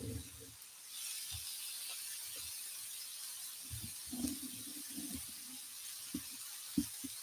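Pork belly slices starting to sizzle on an electric grill pan: a steady hiss that sets in about a second in, with a few soft knocks.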